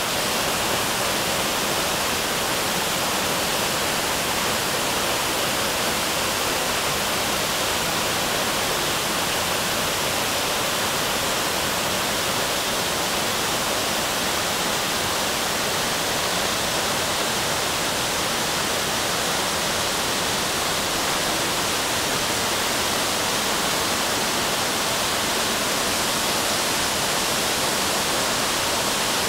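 A waterfall pouring down in a steady, unbroken rush, its flow heavy and swollen after rain.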